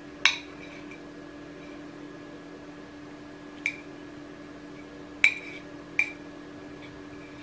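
Metal spoon clinking against a ceramic plate while scooping rice: four sharp clinks, the loudest a little past five seconds, over a steady low hum.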